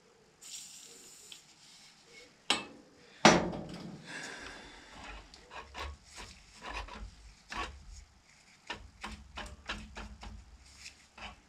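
A David Brown 996 tractor's throttle linkage being worked by hand: short metallic clicks, knocks and scraping, with a sharp knock about three seconds in. The linkage is being tested after repair and is working.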